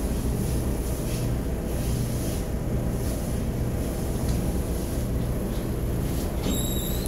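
Steady rumble and low hum of a paint-room ventilation fan drawing air through the wall exhaust grille. A brief high-pitched squeak comes near the end.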